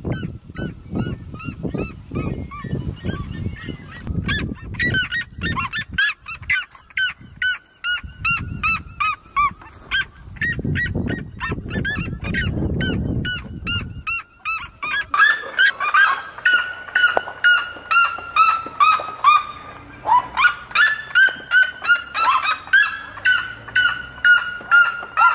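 Red-legged seriemas calling: long runs of loud, rapid notes that slide down in pitch, given over and over, growing louder in the second half.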